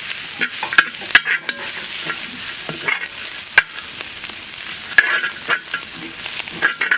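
Stir-fry of vegetables, fried chicken pieces and egg sizzling steadily in hot oil in a pan, while a spatula is stirred through it, knocking and scraping sharply against the pan several times.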